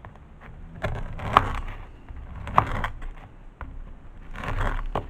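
Serrated bread knife cutting through baguette slices on a wooden cutting board: three short bouts of crunching and sawing, with sharp knocks of the blade against the board.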